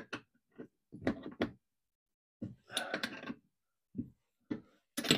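Open spanner working the top-plate bolts of a Blakes seacock: a string of short metal knocks and scrapes, with one longer scrape about two and a half seconds in, as the bolts are nipped up.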